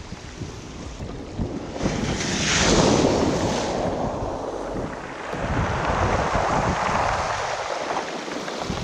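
Storm surf on the Baltic washing around the legs of someone standing in the shallows, with wind buffeting the microphone. A wave surges in about two seconds in and another washes through around six seconds.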